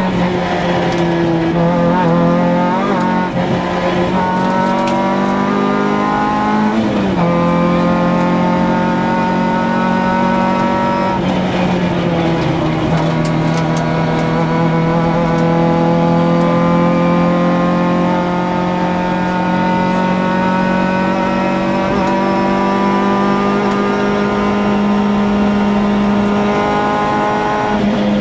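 Peugeot 106 Group A rally car engine at full throttle, heard from inside the cabin, the revs climbing steadily through the gears. The pitch drops sharply at a gear change about seven seconds in and again about twelve seconds in, then climbs again and falls away at the very end as the car comes off the throttle.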